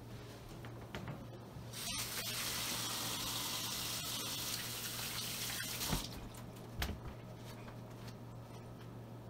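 Kitchen faucet turned on about two seconds in, water running into a stainless steel sink as hands are washed under it, then shut off about six seconds in. Faint rubbing of hands being dried on a cloth towel follows, over a steady low hum.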